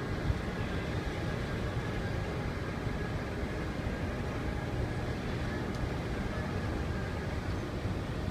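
Steady low rumble of a large ship's machinery, with wind buffeting the microphone and a faint steady whine running through it.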